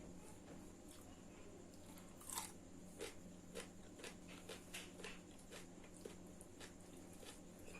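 Faint eating sounds: one crunchy bite about two and a half seconds in, then short soft mouth clicks about twice a second as the food is chewed, over a low steady hum.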